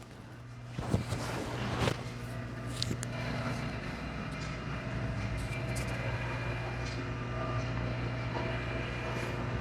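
A steady machine hum that comes up about a second in and holds at an even pitch, with a few faint clicks near the start.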